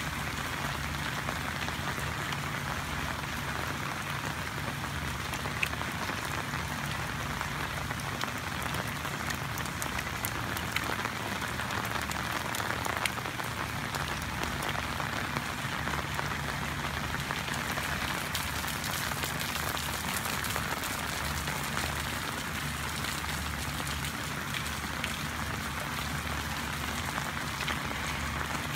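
Steady rain falling: a constant hiss with a fine patter of drops.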